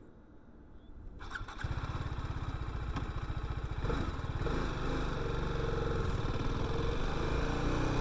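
Motorcycle engine starting about a second and a half in, then running with an even low beat; from about four seconds in it revs up and the pitch rises.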